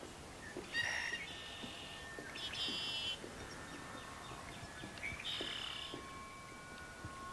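Film soundtrack ambience: four short, shrill bird-like calls over several long, steady held tones, with faint soft taps underneath.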